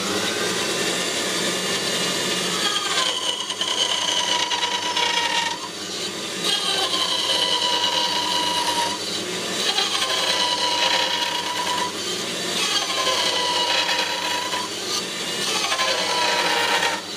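Clarke Woodworker bench band saw running and cutting a small wood block five times in a row. Each cut adds a whining tone over the steady running noise, which dips and stops as the blade comes through the wood.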